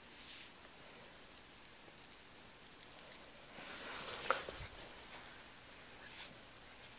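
Cocker spaniel growling quietly while tugging on a rope toy, with a brief louder rustle and a sharp click about four seconds in.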